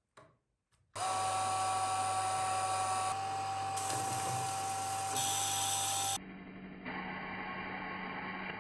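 FS-1501 photoelectric punched-tape reader running: a steady motor whine over a low hum, starting abruptly about a second in. It changes character twice, then cuts to a lower, duller hum about six seconds in.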